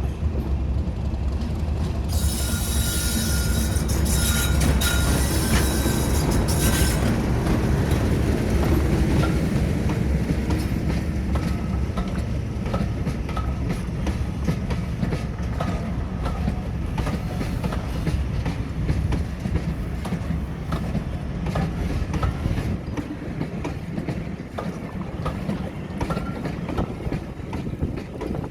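British Rail Class 37 diesel locomotive 37250 running in with a passenger train, its English Electric V12 diesel engine rumbling steadily and its wheels clicking over the rail joints. A high squeal and hiss from the wheels sounds from about two to seven seconds in, and the engine rumble drops away near the end.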